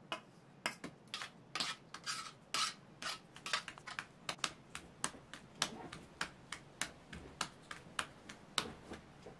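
Floured bread dough being patted and slapped between the palms to flatten it into a round for bolani: an uneven run of short, soft slaps, about three a second.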